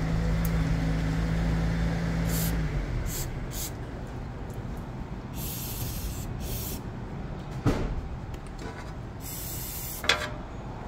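A steady low hum that stops about two and a half seconds in, then several short hissing sprays, the longest about a second, with a couple of sharp metallic clicks.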